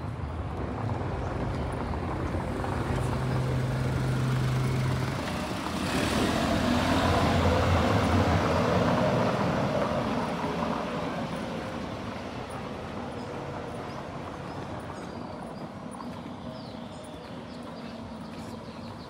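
Vehicle noise: a low steady hum for the first few seconds, then a rushing sound that swells to a peak and slowly fades.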